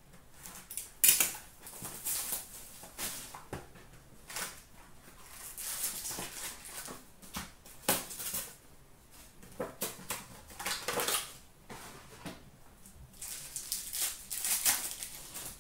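Foil trading-card packs and cards being handled: wrappers crinkling and rustling in short bursts as a pack is torn open, with cards slid and tapped together and a few sharp clicks, the loudest about a second in.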